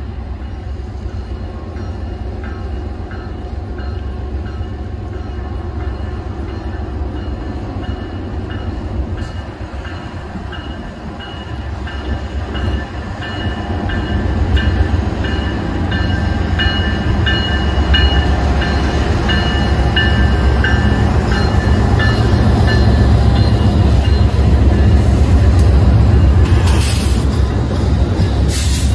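Diesel-powered freight train approaching and passing. A deep engine rumble grows louder from about halfway through as the locomotives go by, with faint high-pitched tones coming and going above it.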